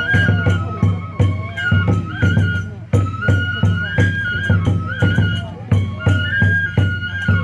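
Oni-kenbai folk dance music: a bamboo transverse flute (fue) plays a stepping melody of held notes over steady taiko drum beats, about three a second, with small hand cymbals.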